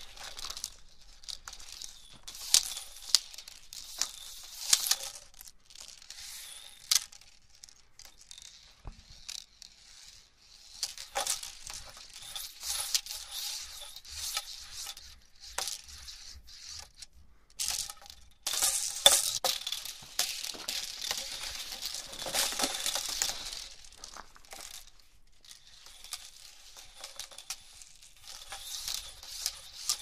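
Plastic hula hoop being spun around a body: irregular swishing and rattling with sharp clicks and clinks, coming in bursts with quieter gaps and busiest about two-thirds of the way through.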